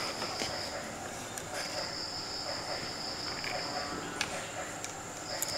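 Insects trilling: a steady high-pitched trill that breaks off and starts again twice, with a few faint taps.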